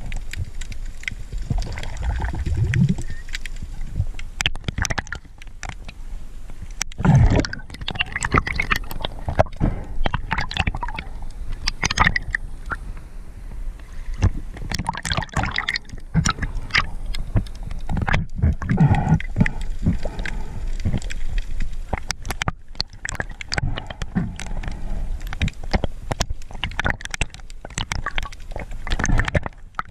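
Water gurgling and rushing with scattered clicks and low swells, heard underwater and at the surface as a diver swims.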